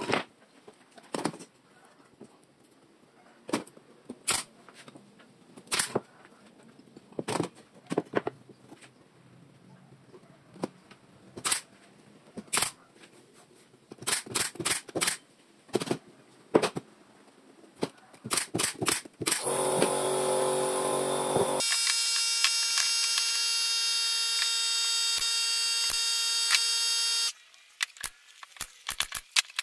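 Pneumatic brad nailer firing into plywood: sharp snaps, some single and some in quick runs of several shots. About two-thirds of the way through, a loud steady hiss runs for about two seconds, then a steady high whine runs for about five seconds and stops abruptly.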